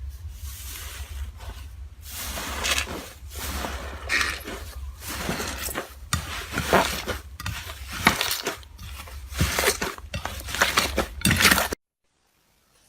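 Hands working slime, giving a run of crackly, crunching squishes that swell and fade every second or so over a low steady hum, cutting off abruptly near the end.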